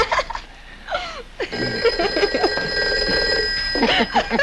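Telephone bell ringing once for about two and a half seconds, starting about a second and a half in.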